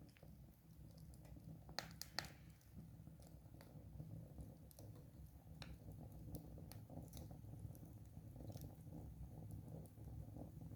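Wood fire crackling faintly, with scattered sharp pops, the two loudest close together about two seconds in, over a low steady rumble.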